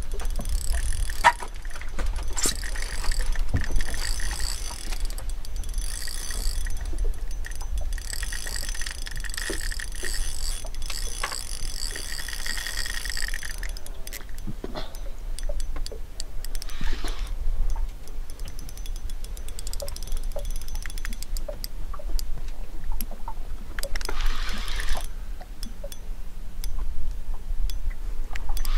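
Fishing reel whirring in repeated bursts, from cranking and line running off the drag, while a large fish is played and makes runs. There are scattered clicks over a steady low rumble. The whirring is densest in the first half and comes again briefly twice later on.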